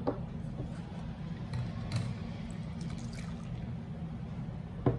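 Watery amla pulp poured and slid from a steel mixer-grinder jar into a mesh strainer over a glass bowl, with a few light knocks of metal, over a steady low hum.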